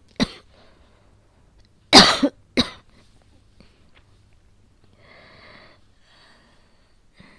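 A woman coughing during an asthma attack: one short cough just after the start, then two harsh coughs about two seconds in, half a second apart.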